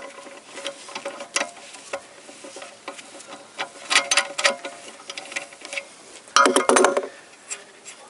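Ratchet wrench clicking in irregular runs as it loosens the bolts of the baffle plate inside a GM Ecotec oil sump. A louder rattle comes about six and a half seconds in.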